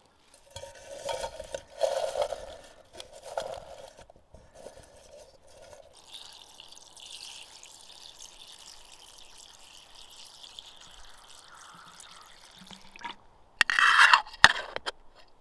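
Water poured in a stream into a small black metal pot full of spruce twigs: uneven splashing at first, then a steady pouring hiss. Near the end the metal lid is set on the pot with a brief loud clatter.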